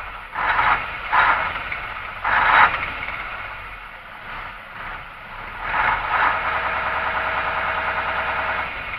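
YaMZ-238 V8 diesel of an Ural truck running, revved in three short surges in the first few seconds, then settling before being held at a higher speed from about six seconds until near the end. It runs normally.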